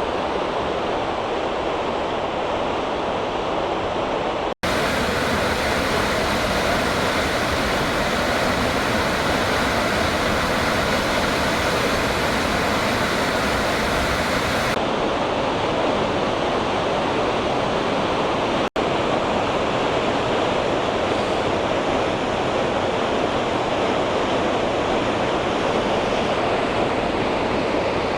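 Steady rush of water from a stream and small waterfall tumbling down rocks. The sound cuts out for an instant twice, about four and a half seconds in and again near nineteen seconds, changing slightly in tone each time.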